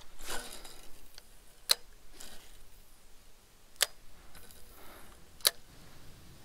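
Four sharp clicks about two seconds apart, with faint rustling between them, from the fishing rod and reel being worked while retrieving a lure.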